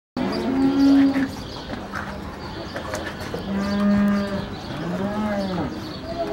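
Cattle mooing, several held calls one after another: a moo about a second in, a long low one near four seconds and an arching one just after five seconds.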